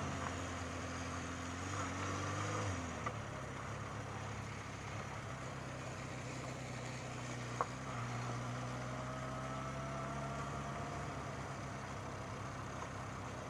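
Honda Nighthawk motorcycle engine running steadily at low speed, its note dipping about three seconds in. A single sharp click sounds a little past halfway.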